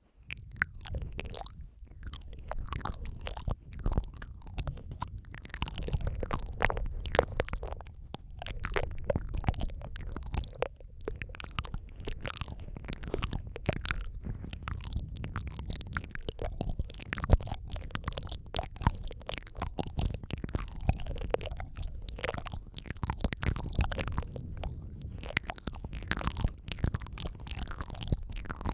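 Close-miked mouth sounds: a dense, irregular stream of wet clicks, smacks and licking sounds, several tracks layered over each other, over a constant low rumble.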